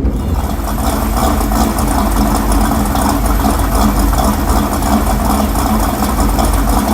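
1965 Ford Mustang fastback's 589-cubic-inch V8 running steadily, loud, with an even rumble.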